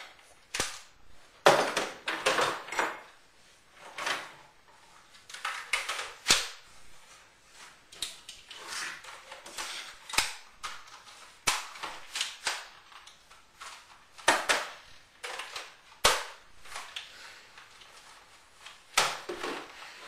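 Guns being handled and worked at close range: about a dozen sharp, irregular mechanical clacks and snaps, a second or two apart.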